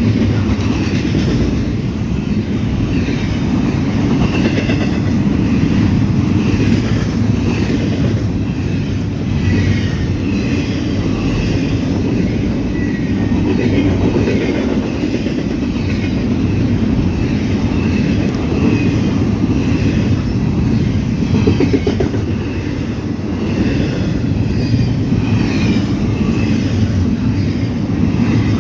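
Norfolk Southern freight train rolling past: a steady, loud rumble of wheels on rail, with some clickety-clack of the cars.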